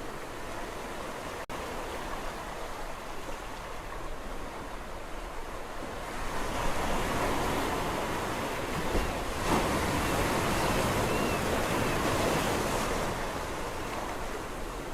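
Sea waves on a shore, a steady surf wash. A wave swells about six seconds in, is loudest around ten seconds, and eases off near the end.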